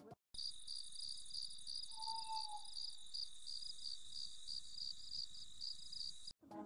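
Crickets chirping steadily, about three chirps a second, starting and cutting off abruptly like a night-time sound effect. A brief faint tone sounds about two seconds in.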